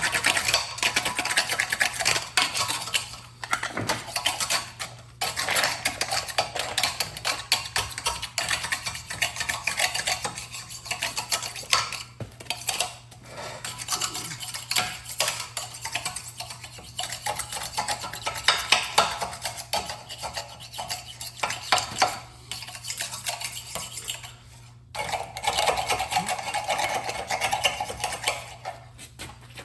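Small metal parts and hand tools clinking and scraping, a dense run of clicks and rubbing with a few brief pauses.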